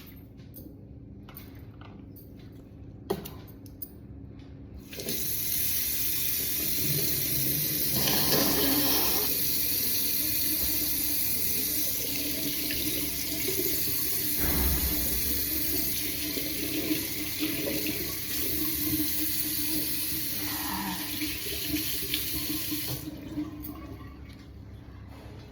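Water running from a tap into a sink, turned on about five seconds in and off a couple of seconds before the end, with a few faint clicks before it starts.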